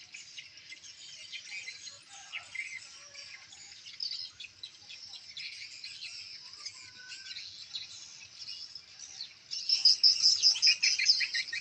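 Swiftlets twittering: a dense, unbroken chatter of high chirps, which grows much louder about nine and a half seconds in.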